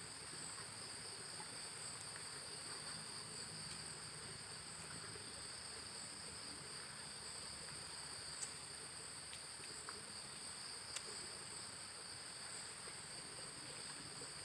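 Faint, steady insect chorus: a continuous, even high-pitched buzz at two pitches, with a few faint ticks.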